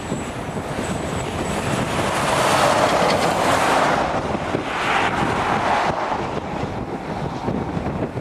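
Blizzard wind buffeting the microphone with a steady low rumble, swelling into a louder rushing hiss about two seconds in that eases off around six seconds in.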